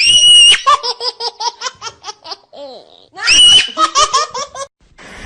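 High-pitched laughter in two bouts. Each bout opens with a shrill squeal, then breaks into a fast run of rhythmic ha-ha pulses, about seven a second, and it stops a little after four and a half seconds in.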